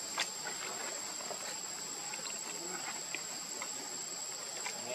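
Insects in steady chorus, a high-pitched drone, with a sharp click just after the start and scattered fainter ticks.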